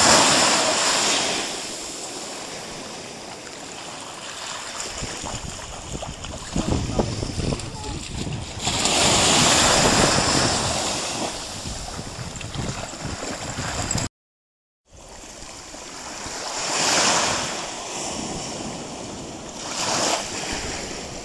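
Small sea waves breaking on the beach: the surf swells and fades four times, with a short gap in the sound about two-thirds through.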